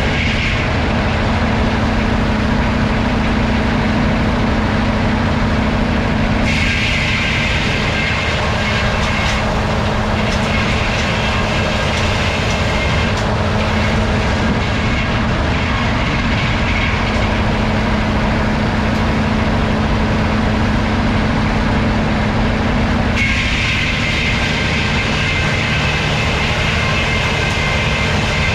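Vintage sawmill running: a steady machine hum, with a higher-pitched whine from the saw that comes in for a few seconds about six seconds in and again near the end.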